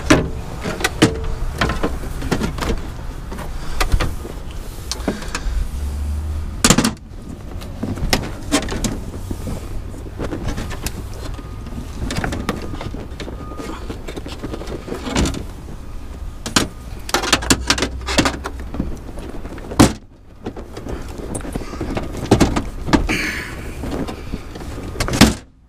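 Irregular clanks, knocks and scrapes as the metal cover of a hybrid traction battery pack is worked into place by hand during reassembly, with a low steady rumble underneath.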